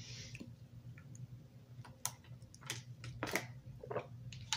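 A few faint, scattered clicks, about one every half second to second, over a low steady hum.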